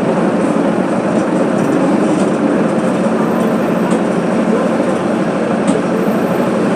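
Mercedes-Benz OF 1721 BlueTec 5 bus's diesel engine running steadily, with a couple of faint rattles.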